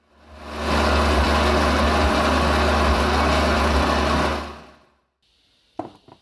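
A power tool's motor running steadily with a low hum under a broad whirring noise, fading in and then fading out after about four seconds.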